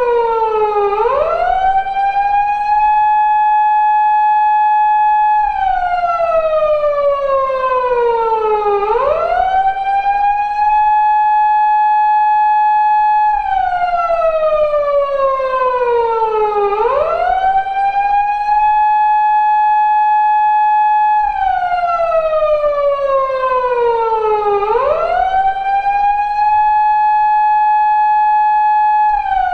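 2000s-era Japanese police car siren sounding its slow wail. Each cycle of about eight seconds rises quickly to a high tone, holds it steady for a few seconds, then slides slowly back down. The cycle repeats four times.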